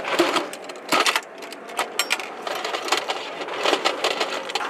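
Metal clicking and clinking of a linked belt of 7.62 mm cartridges (M13 links) being handled on a steel ammunition can, a run of sharp, irregular clicks and knocks.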